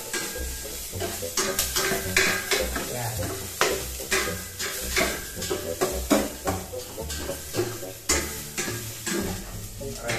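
A metal ladle stirs in a stainless steel pot, scraping and clinking irregularly against the pot, over the sizzle of garlic and onion being sautéed.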